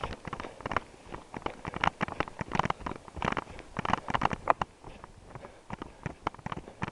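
Brisk footsteps on a hiking trail, a run of scuffing steps with the handheld camera rustling along.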